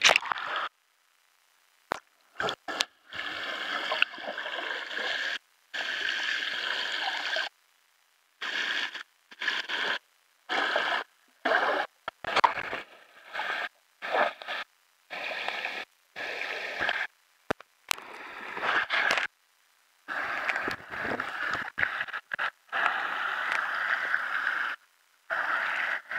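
Rushing water of a creek waterfall and its pool, heard in short stretches that cut off abruptly to dead silence many times over, like the recording dropping out.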